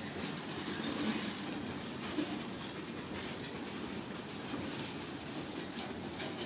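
Freight train boxcars rolling past at speed: a steady rumble of steel wheels on rail, with scattered clacks as wheels cross rail joints.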